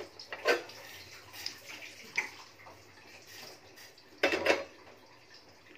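Light clinks of a steel saucepan and spoon being handled on a gas stove, a few scattered taps, then a louder, short clatter about four seconds in as the pan is gripped with tongs.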